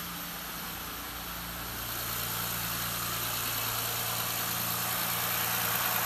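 Honda 3.5-litre V6 idling steadily and running smooth with no rattle, its new timing belt and tensioner fitted. The engine gradually gets louder.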